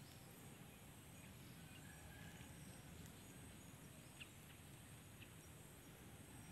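Faint outdoor ambience: a steady low rumble with a few faint, short high chirps about two-thirds of the way through.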